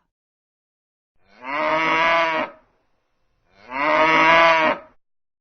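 Bull mooing twice: two long moos of about a second each, the second following about a second after the first.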